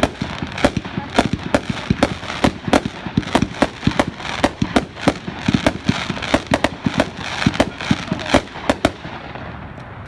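World Class 'Fighting Rooster' 500-gram consumer firework cake firing: a rapid string of sharp shots and breaks, about three or four a second, over crackling. The shots thin out near the end.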